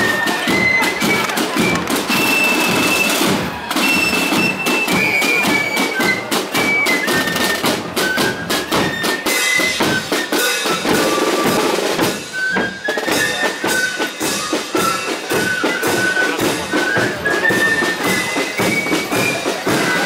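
A marching band playing a tune on wind instruments over drums. Many sharp knocks and bangs run through it.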